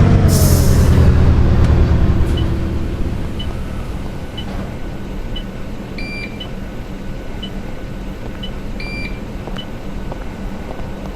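Double-decker bus slowing to a stop: the engine note falls and quietens, with a short air hiss about a second in, then the engine runs quietly at rest. Small beeps sound about once a second, with a two-tone beep a few times, from about halfway on.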